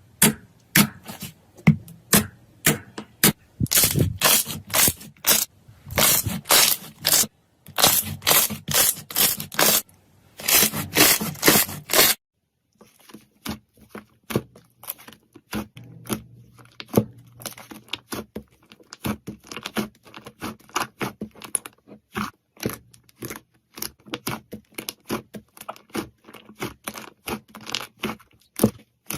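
Slime being squeezed and worked by hand, making a rapid string of sharp crackling pops. About twelve seconds in, the sound drops suddenly to quieter, sparser crackles.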